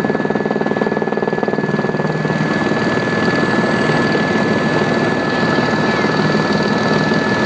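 Helicopter running, a steady loud engine and rotor noise with a fast rhythmic chop and a steady high whine over it.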